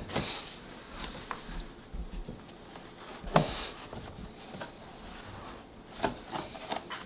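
Vinyl flooring planks being handled and fitted: scattered light knocks and rubbing, with a sharper knock about three seconds in and another about six seconds in.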